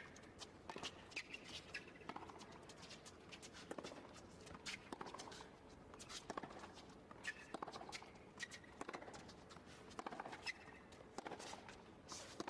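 Tennis rally on a hard court: the ball is struck back and forth by racquets and bounces, heard as sharp pops about every second, with the players' footsteps between them.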